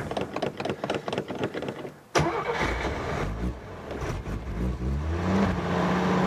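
1960 AMC Rambler engine running unevenly and dying out about two seconds in. A sharp click follows as it is restarted; it stumbles, then catches a little past five seconds and runs steadily. The stumbling comes from a carburettor float bowl not yet full after years of sitting.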